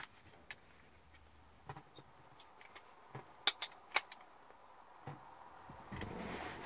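Scattered light clicks and taps of handling, with two sharper clicks about halfway through and a rustling that starts about six seconds in.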